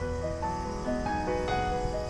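Background music: a melody of held notes.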